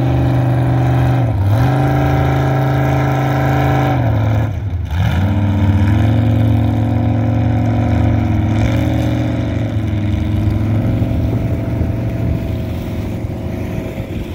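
Race jet boat's engine running at high revs as it passes and heads away. The pitch drops and climbs back about a second in, and more deeply around four to five seconds in, then the engine fades gradually.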